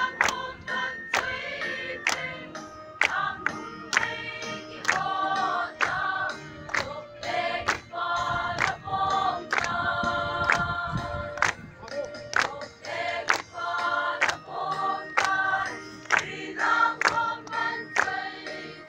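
A choir singing a commemoration song in harmony, with a sharp, regular beat about twice a second.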